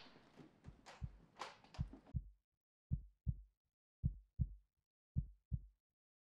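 Heartbeat sound effect: slow, low lub-dub thumps in pairs, a little slower than one beat a second, over silence.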